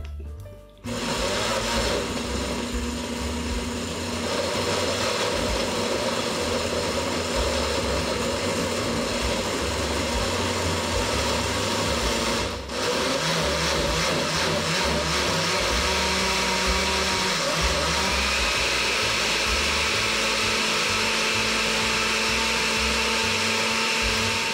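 Countertop blender running, puréeing chopped tomato, onion and a little water into a sauce. The motor starts about a second in, stops for a moment about halfway through, then runs steadily again.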